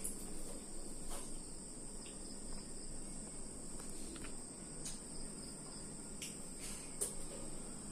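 Crickets chirring steadily in a continuous high-pitched trill, with a few faint clicks, the sharpest about seven seconds in.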